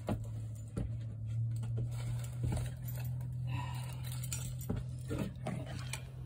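Steady low hum with a handful of light, scattered knocks and clicks from someone moving about among torn-out wall paneling and debris on a camper floor.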